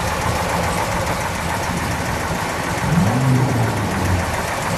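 The Charger's factory 426 Hemi V8 idling, with a brief rise in engine pitch about three seconds in that settles back.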